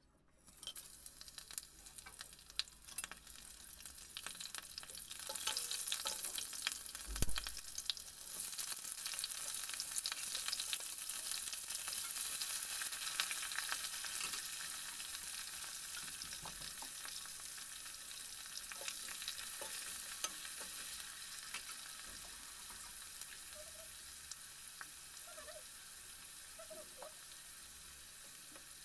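Whole spices (bay leaves, green chillies, cumin, cardamom, cinnamon, cloves, star anise) hitting hot oil in a stainless steel kadai, sizzling and crackling. A knock comes about seven seconds in, then the sizzling grows louder and slowly fades.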